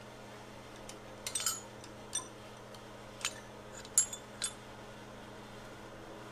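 Metal parts and tools clinking and tapping as they are handled during an engine teardown: about six sharp clinks, the loudest about four seconds in, over a steady low hum.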